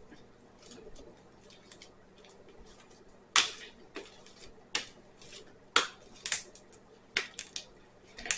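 Sticky homemade slime being kneaded and pulled apart by hand, giving a string of sharp wet snaps and pops at uneven intervals from about three seconds in.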